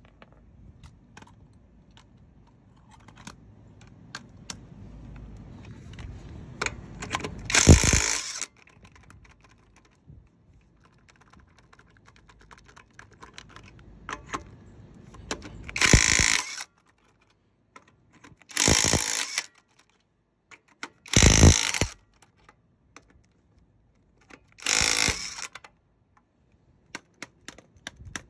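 Five short bursts from a power tool on the truck's wheel lug nuts, each about half a second to a second long, with light clicks of tools and metal between them.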